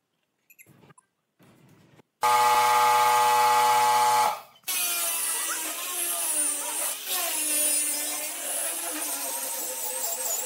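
A few faint clicks, then a power tool runs at a steady pitch for about two seconds and stops. After that, a handheld angle grinder fitted with a sanding disc sands across wooden boards, its pitch wavering as it is pressed onto and moved over the wood.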